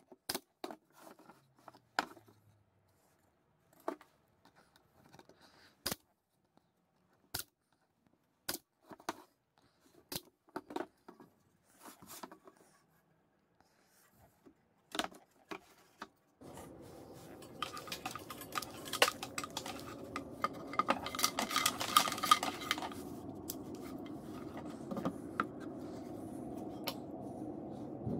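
Pneumatic brad nailer driving nails into a pine box, a sharp shot every second or two. About halfway through, a steady background noise sets in under a run of small metal clicks and scrapes as the tools are handled.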